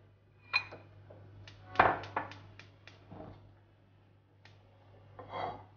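Kitchen clatter from handling a cup, small bowls and utensils on a counter: a short ringing clink, then a quick run of about six knocks and taps, a lone click and a brief clatter near the end, over a faint steady low hum.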